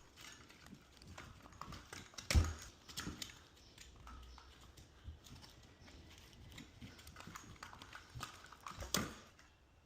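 Faint clicks and knocks of a tool and cable being handled as the outer jacket is stripped off electrical cable, with one louder knock about two and a half seconds in.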